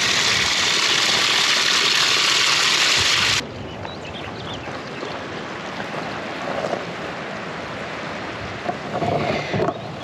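Rushing mountain water, a loud steady hiss that cuts off abruptly about three seconds in, then a quieter steady rush.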